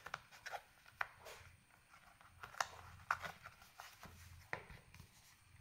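Quiet handling noise from a small black zippered earphone carrying case and a USB cable being packed into it and the lid worked shut and open: a string of small irregular clicks and rustles.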